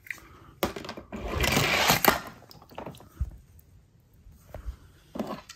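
A die-cast toy car dropped into a plastic tub of water holding other toy cars: a short splash about a second and a half in, with scattered clicks and clinks of the metal cars knocking against each other and the tub.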